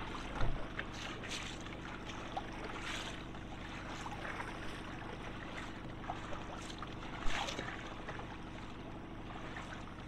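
A small fishing boat's motor running steadily at trolling speed, with water lapping and splashing against the hull; the loudest splashes come about half a second in and again about seven seconds in.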